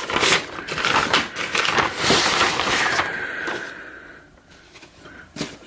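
Close handling of thin wires and a small plastic wiring connector: dense rustling and clicking for the first few seconds, quieter after, with one sharp plastic click near the end.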